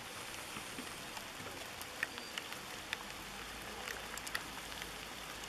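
Canoe paddles dipping in pond water: a steady hiss with scattered light drips and splashes, heard as short ticks every second or so.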